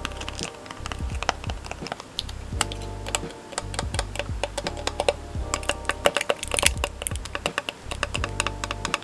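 Fingertips and nails tapping and rubbing on a metal tin of slime, giving quick, irregular clicks, over background music with a steady beat.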